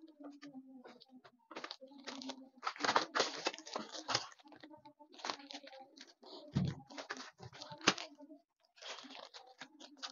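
Plastic wrapping crinkling and rustling while a folded steel baby cradle frame is handled and opened out, with irregular knocks of the metal tubes: a dull thump about six and a half seconds in and a sharp knock near eight seconds.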